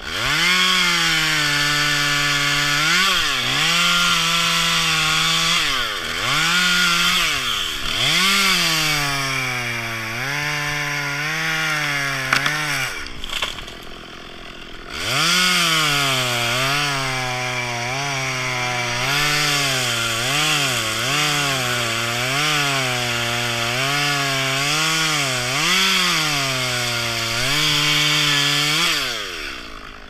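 Top-handle chainsaw cutting into a maple trunk at high revs, its pitch dipping briefly every second or two. About halfway through it falls to idle for a couple of seconds, runs up again, and winds down near the end.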